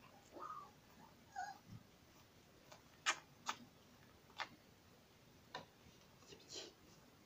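Pyrenean Mastiff puppy giving two short, high squeaks in the first second and a half. Then come five scattered sharp clicks, the first of them the loudest sound here.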